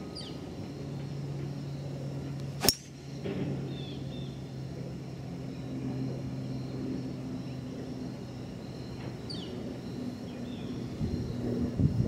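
A golf club (driver or fairway wood) strikes a teed ball with a single sharp crack about three seconds in. Under it runs a steady low hum, and a few short falling bird chirps come and go.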